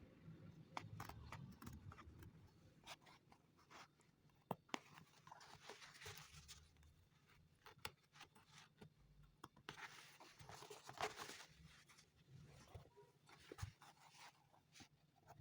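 Faint scratching and rubbing with scattered sharp clicks: hand tools working on a leather shoe, with a louder scratchy stretch about two-thirds of the way through.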